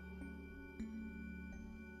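Faint background music: sustained tones with a few new notes struck in slow succession.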